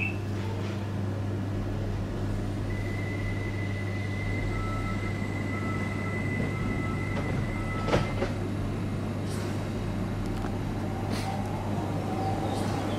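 A train's steady low hum that holds unchanged. A high steady tone comes in about two and a half seconds in, a string of short beeps sounds in the middle, and a sharp click comes about eight seconds in.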